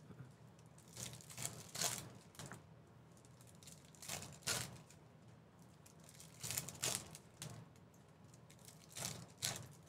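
Foil wrapper of a Topps Merlin trading-card pack crinkling and being torn open by hand: a string of brief, faint crackles and tears.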